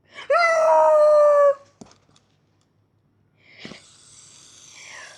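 A loud, high-pitched cry held for about a second and falling slightly in pitch. It is followed by a sharp click and, about two seconds later, a knock.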